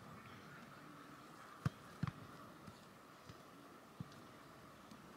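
A football being kicked in play: a few sharp thumps over faint background noise, two close together about two seconds in and fainter ones later.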